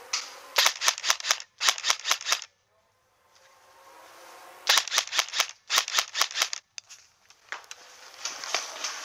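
Airsoft rifle firing two quick strings of about ten sharp shots each, roughly five a second, with a pause of about two seconds between them.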